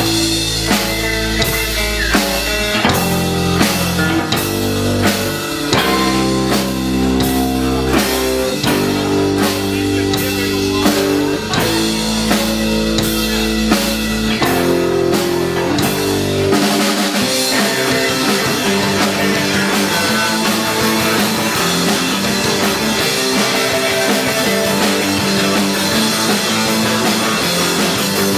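Rock band playing live, an instrumental opening: drum kit keeping a steady beat under bass and electric guitar. A bit over halfway through the deep bass drops out and the sound turns into a dense wash of guitar and cymbals.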